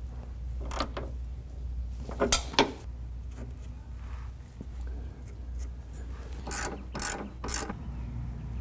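Metal hand tools working a car's rear stabilizer link bolts: short clicking and rattling strokes of a wrench, a pair a little after two seconds and a run of three near seven seconds, over a steady low hum.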